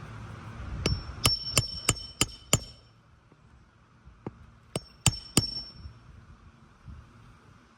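Hammer driving roofing nails back into a three-tab asphalt shingle during a repair: a quick run of six ringing blows, about three a second, then a pause and three more.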